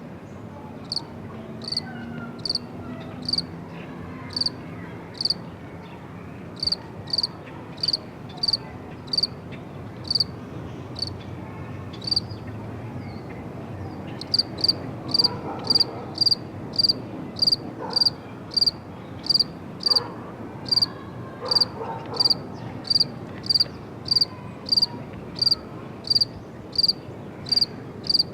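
Crickets chirping in a steady rhythm of short, high chirps over a low background hiss. The chirps are about one a second and uneven at first, then faster, louder and evenly paced from about halfway.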